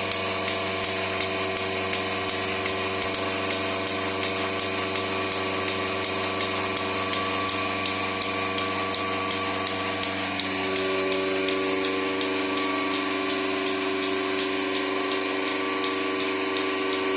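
Milking machine running steadily: a motor hum with a constant whine. About ten seconds in, its tone shifts and it gets slightly louder.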